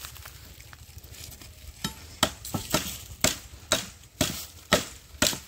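Chopping into bamboo with a blade: a run of sharp blows, about two a second, starting about two seconds in.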